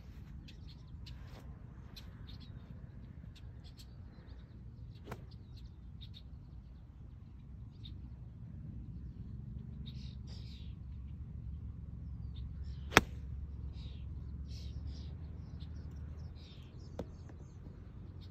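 Pitching wedge striking a golf ball: one sharp, loud click about two-thirds of the way through. Birds chirp throughout over a low outdoor rumble, and a smaller click comes near the end.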